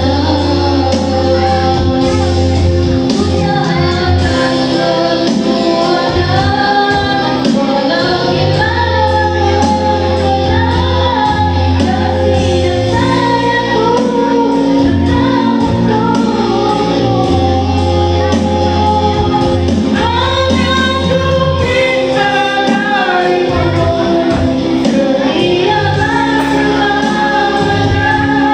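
A Malay-language song with a woman singing the melody over a steady beat and a bass line.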